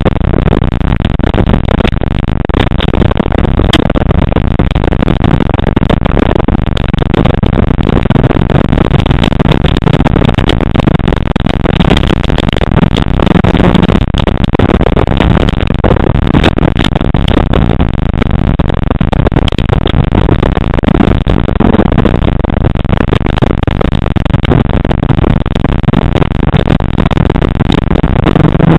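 Rally car's engine running hard at speed, heard from inside the cabin, its pitch rising and falling with the throttle and gear changes, over a steady din of tyres on gravel with stones clattering against the underbody.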